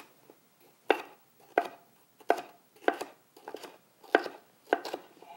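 Chef's knife slicing red bell pepper into thin matchstick strips on a wooden cutting board, with down-and-forward strokes. About eight crisp cuts come at an even pace, roughly three every two seconds.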